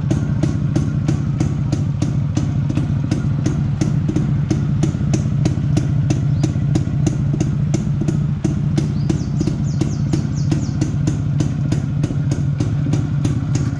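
Yezdi CL II's 250 cc two-stroke single-cylinder engine running steadily at idle, with an even beat about four times a second.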